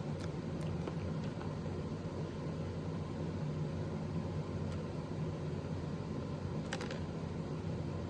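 A steady low hum with a few faint clicks, including a short cluster of them about seven seconds in.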